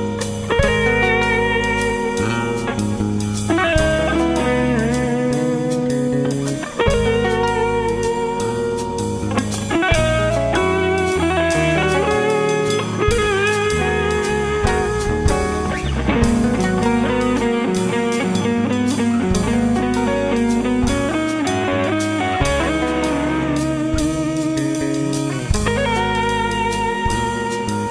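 Background music: a guitar-led track with bass and drums keeping a steady beat.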